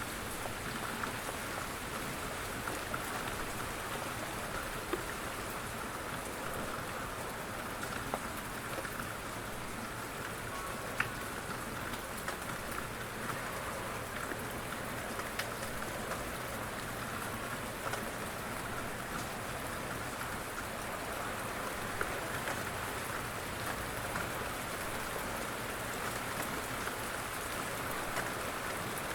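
Steady rain falling, a continuous hiss of drops with occasional single louder drop ticks.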